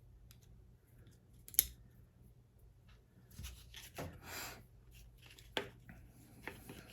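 Quiet metal clicks and rubbing from the parts of a Taurus G2 pistol being handled as the recoil spring assembly is fitted against the barrel during reassembly. The sharpest click comes about a second and a half in, with a few fainter clicks later.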